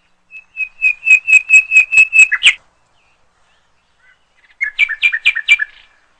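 Bird chirping: a fast run of about ten sharp chirps at roughly four a second, then, after a pause of about two seconds, a shorter run of four or five.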